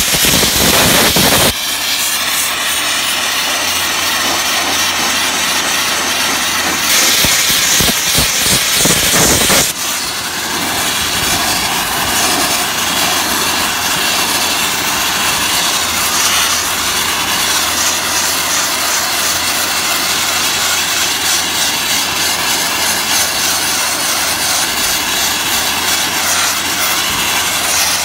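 Ecoquip vapor abrasive blaster nozzle spraying a wet crushed-glass slurry against painted truck sheet metal: a loud, steady hiss, louder for the first second or so and again from about seven to ten seconds in, with a steady low hum underneath.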